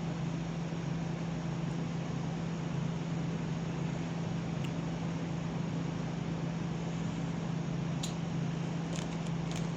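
Steady low hum and hiss of background room noise, like a running fan, with a few small clicks near the end.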